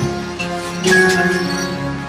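Background music with held notes that change about a second in.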